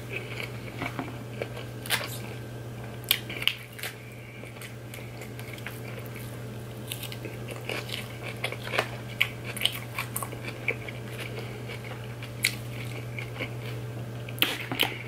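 Close-up chewing and crunching of salad greens and vegetables, with sharp crisp bites scattered throughout, over a steady low hum.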